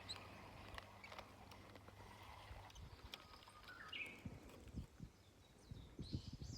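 Faint bird chirps, a short one a little past the middle and another near the end, over a quiet outdoor background, with a few soft low knocks near the end.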